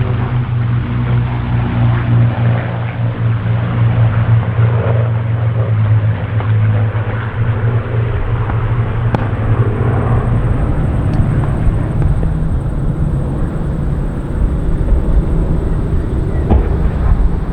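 Rolls-Royce V12 aero engines of Supermarine Spitfires, a Griffon and two Merlins, running steadily in flight. Partway through, the steady engine tone gives way to a rougher low rumble.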